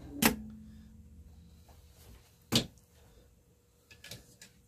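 Sewing machine stopped mid-seam: a sharp click with a brief low hum just after the start, another sharp click about two and a half seconds in, and a few faint clicks near the end. These are the sounds of the presser foot being raised and the fabric readjusted between short runs of stitches.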